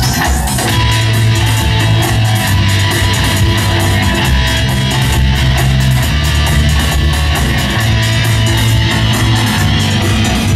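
Live rock band playing loudly: electric guitar and bass over a fast, even drum beat that comes in about a second in.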